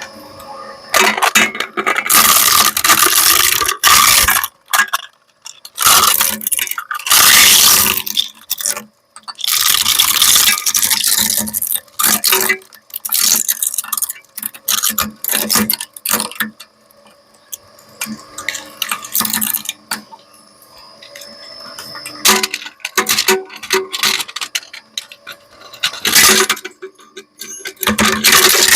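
Industrial shredder breaking up a hair dryer: irregular loud cracking and crunching of plastic, with metallic clinks. The bursts are densest in the first half, thin out in the middle, and come back loud near the end.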